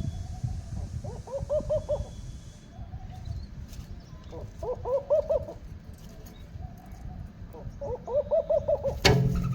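A bird calling three times, each call a short quick run of rising-and-falling notes, with softer single notes between the calls. A low rumble runs underneath, and a sharp knock comes near the end.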